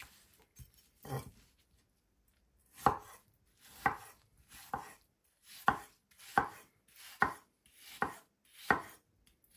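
Large kitchen knife cutting cucumber into coarse chunks on a bamboo cutting board: one cut about a second in, a pause, then eight more cuts about one a second.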